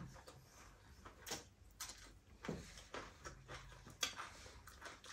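Quiet eating sounds: a few faint, short clicks and smacks as rice is mixed by hand on a plate and chewed.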